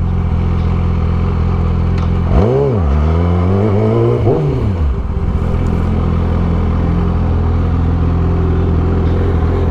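Yamaha R6 sport bike's inline-four engine running steadily, with two brief revs that rise and fall about two and a half and four seconds in.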